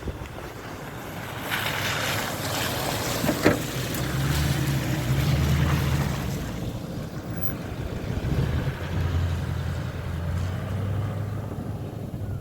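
A car driving through deep snow: a low engine hum with wind noise on the microphone, and a burst of rushing noise with one sharp knock a few seconds in.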